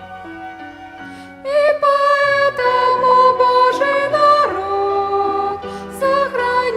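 A sacred song in Russian, accompanied by a violin ensemble. The sustained instrumental notes are joined about a second and a half in by singers, and the music grows louder.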